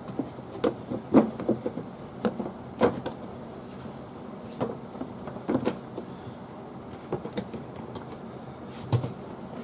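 Golf cart's rubber floor mat being laid back over the floor access opening and pressed into place by hand: a string of irregular dull thumps and light knocks.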